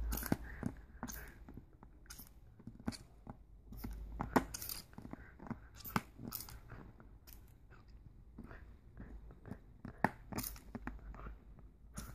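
Siberian husky puppy biting and chewing on the plastic nozzle of a spray bottle: irregular clicks and crunches of teeth on hard plastic.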